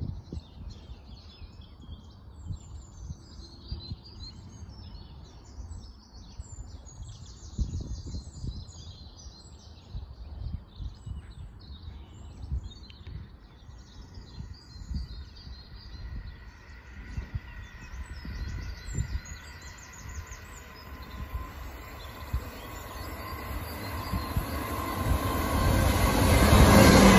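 Birds singing over low, gusty rumbles. Then a pair of Class 444 Desiro electric multiple units approaches: their sound builds steadily over the last ten seconds or so into a loud rush with a steady whine, loudest as the train reaches the end.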